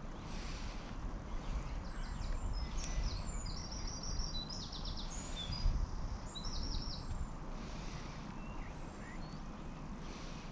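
Steady low outdoor rumble, with a songbird calling over it: quick high chirps and short trills from about three to seven seconds in, then a few fainter calls.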